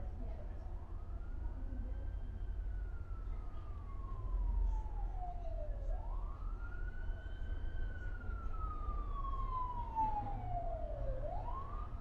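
Emergency-vehicle siren in wail mode: a quick rise and long slow fall in pitch, repeating about every five seconds, over a low steady hum.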